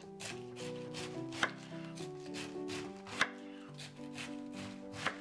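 A large kitchen knife slicing through a wedge of white cabbage and its core, with a few sharp knocks as the blade meets the wooden cutting board; the two loudest come about one and a half and three seconds in. Soft background music with a melody plays underneath.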